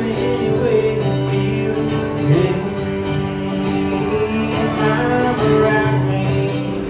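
Country music with guitar and singing.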